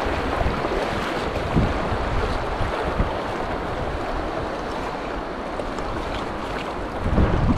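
Class II river rapid rushing and churning around a kayak, with wind buffeting the microphone; the wind rumble swells about seven seconds in.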